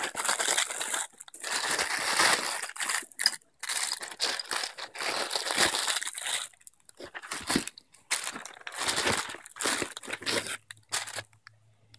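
Clear plastic packaging bags crinkling and rustling as parts are pulled out and handled, in irregular bursts with short pauses, thinning out in the last couple of seconds. A faint low hum appears near the end.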